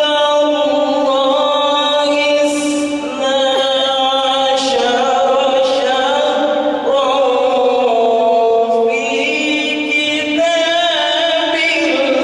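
A man's solo voice singing an Islamic devotional chant through a microphone and loudspeakers, holding long notes with many turns and glides.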